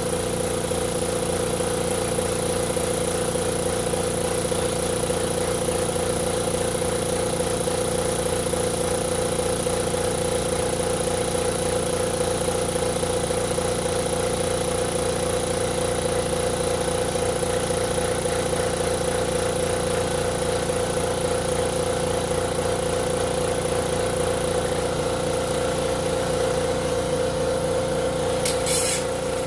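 2.5 HP portable piston air compressor running steadily under load, a constant motor hum over fast regular piston pulsing, as it pumps air into the tank now that its intake fault is repaired. A brief sharp noise near the end.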